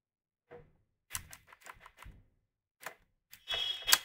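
Computer keyboard keystrokes, a scattered series of clicks while code is typed, with a quicker run of keystrokes near the end.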